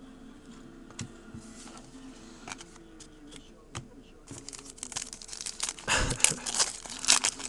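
Foil trading-card pack wrapper crinkling and tearing as it is opened by hand, starting about halfway in and getting louder toward the end, after a few light clicks of cards being handled.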